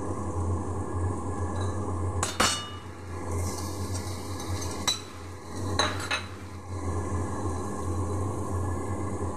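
A metal spatula clinking and scraping against a steel wok as spices fry, with a few sharp clinks in the middle over a steady low hum.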